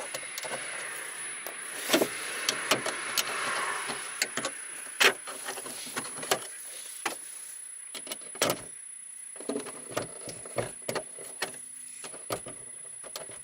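Plastic interior trim panel on a car's rear hatch being pried off with a trim panel tool: irregular sharp clicks and knocks as the clips are worked loose, with scraping and rubbing of plastic in the first few seconds.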